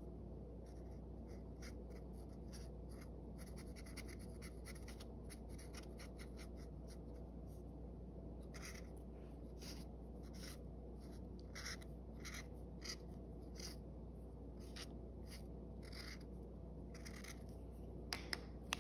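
Washable felt-tip marker scratching across a paper towel in short strokes as a sun and its rays are drawn, quick and close together at first, then spaced out about one or two strokes a second. A few sharp clicks near the end.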